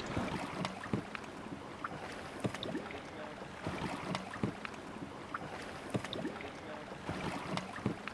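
Scattered small knocks and taps, irregular and a second or so apart, over a soft hiss: an inflatable dinghy and its oars and rope being handled.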